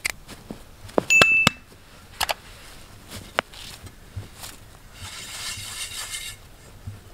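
Footsteps and crunching in snow, with a sharp metallic clink of a pan about a second in that rings briefly. Near the end, snow is scrubbed around inside the pan by hand for about a second and a half.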